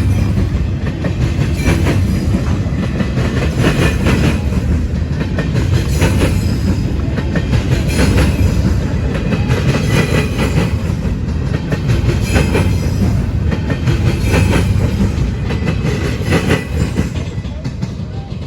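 Freight cars of a BNSF manifest train rolling past, a steady heavy rumble with the wheels clacking over rail joints roughly every two seconds.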